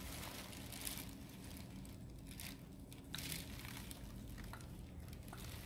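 Faint handling sounds of a plastic squeeze bottle of fluid acrylic paint being squeezed out into a paper cup, with light crinkling, over a low steady hum.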